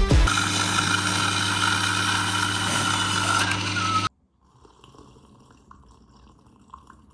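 Franke fully automatic coffee machine dispensing coffee and milk into a mug: a steady pump hum with a hiss, cutting off abruptly about four seconds in. After that, only faint small sounds of sipping from the mug.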